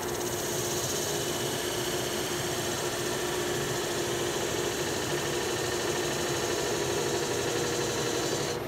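Wood lathe running, a steady motor hum with one constant tone over an even hiss.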